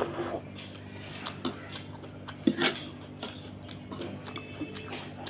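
Metal fork clinking and scraping on a plate of noodles, with close-up chewing. Scattered light taps throughout, the loudest a short burst about two and a half seconds in, over a low steady hum.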